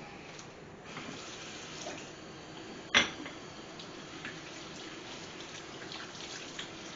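Kitchen sink tap running while hands are washed under it, with a single sharp knock about three seconds in.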